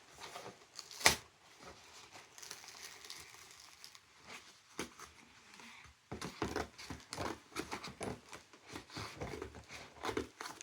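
A tough cardboard shipping box being wrestled and torn open by hand, with crinkling and tearing of the packaging. There is a sharp snap about a second in, and a busy run of rustling and knocks in the second half.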